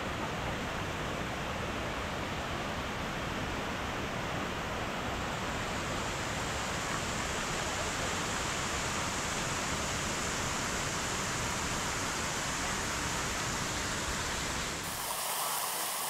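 Shiraito Falls' wide curtain of many thin streams pouring into a shallow pool: a steady rushing splash of falling water. About fifteen seconds in, the low rumble drops out abruptly and the water sounds thinner and closer.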